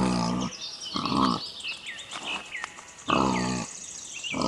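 Piglets calling: four short, pitched squeals, irregularly spaced.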